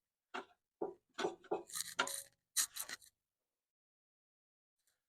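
Short scrapes and light clinks of handling, about a dozen of them, stopping about three seconds in.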